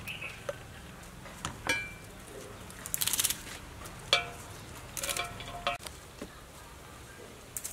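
Leaves being snapped off a green stem by hand over a stainless-steel bowl: crisp snaps and a brief crackle of leaves about three seconds in, with short metallic clinks as the bowl rings, at about two, four and five seconds in.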